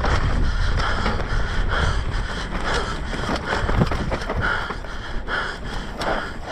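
Mountain bike descending a dry, dusty dirt trail: the knobby tyres hiss and crunch over the loose dirt, wind rumbles on the action camera's microphone, and a few short clatters come from the bike over bumps.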